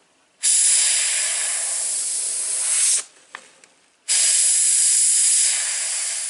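Airbrush spraying paint in two long bursts of hiss, each starting and stopping sharply as the trigger is pressed and released, with a short gap between them.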